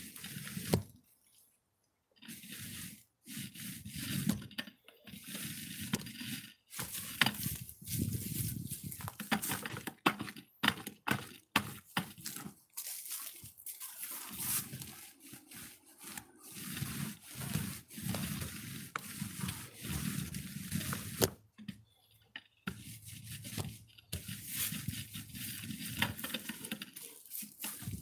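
Paint roller on a pole spreading thick black waterproofing coating over plywood: wet, sticky rolling strokes in an irregular run, with a couple of short pauses.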